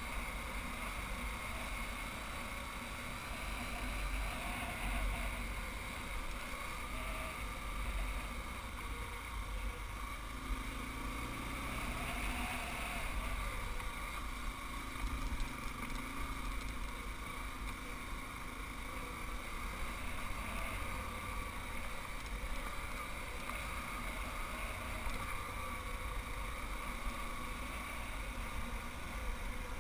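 Off-road vehicle engine running steadily while riding a rough trail, with a low wind rumble on the microphone.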